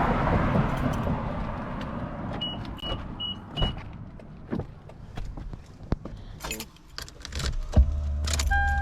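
Handling sounds in and around a car: four short high beeps in a row about two and a half seconds in, then scattered clicks and knocks, and a thump near the end followed by a steady low hum.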